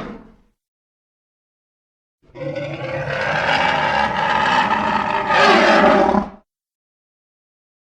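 A dinosaur call sound effect: one harsh, pitched call about four seconds long that rises in pitch near its end and cuts off, after the tail of an earlier call dies away.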